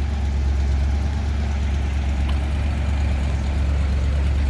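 1986 Fleetwood Southwind motorhome's engine idling steadily just after start-up, running with a strong low, unchanging note.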